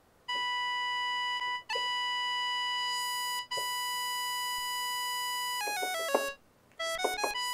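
Korg minilogue bass analog synthesizer playing a steady, bright single note with many overtones, cut off and struck again twice, then a quick run of short notes stepping up and down near the end.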